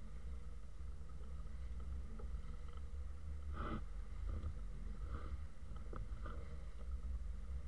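Small sailing yacht under way: a steady low rumble with water slapping against the hull every second or two, the loudest splash about three and a half seconds in.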